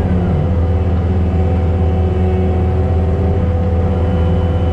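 Heavy diesel engine of a Takeuchi TL12R2 track loader running steadily at working speed while driving a forestry mulcher head, with a thin steady whine above the engine hum.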